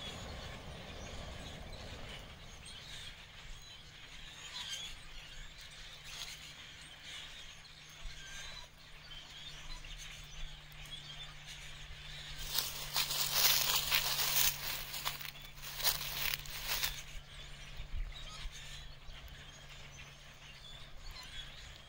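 Quiet outdoor ambience with a steady low hum. About twelve seconds in, a rushing noise swells for several seconds and then fades.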